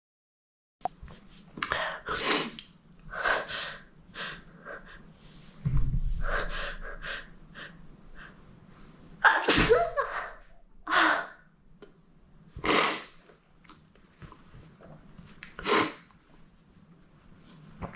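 A young woman sneezing again and again, about four loud sneezes with sniffles and sharp in-breaths between them.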